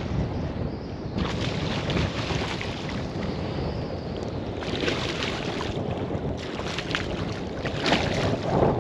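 Wind buffeting the microphone, with bursts of splashing as a hooked fish thrashes at the water's surface, several times and strongest near the end.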